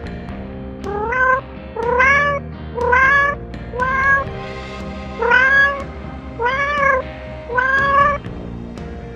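Domestic cat meowing seven times in a row, about once a second; each meow rises and then falls in pitch. Background music plays underneath.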